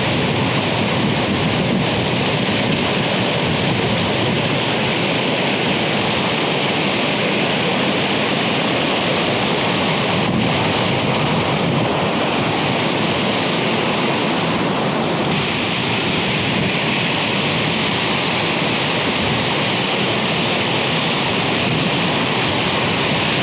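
Moorland stream in spate after heavy rain: brown floodwater rushing steadily and loudly over rock slabs and small waterfalls.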